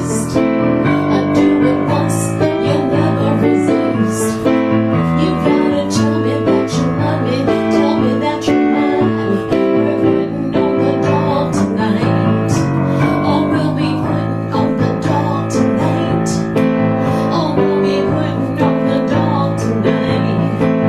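Music led by piano, with a steady beat.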